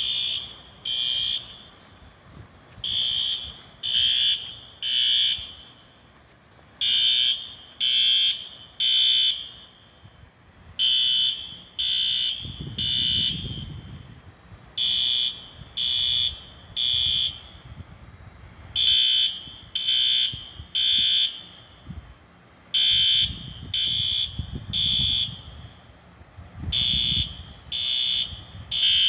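Fire alarm sounding its three-beep evacuation pattern: groups of three high beeps about a second apart, a new group every four seconds. A low rumble comes and goes about halfway through and again near the end.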